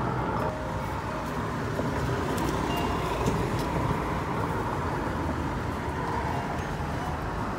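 Steady low outdoor rumble, like distant road traffic, with a few faint light clicks and taps over it.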